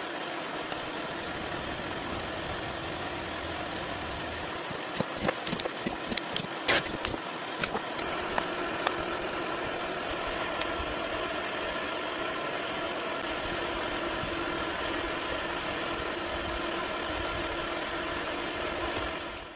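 A steady mechanical drone with several constant tones runs throughout. A run of sharp clicks and knocks comes about five to eight seconds in.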